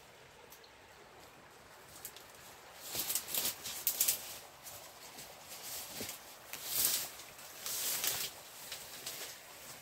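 Dry leaves, twigs and brush rustling and crunching in several short bursts from about three seconds in, from movement through dry undergrowth while sticks are gathered for firewood.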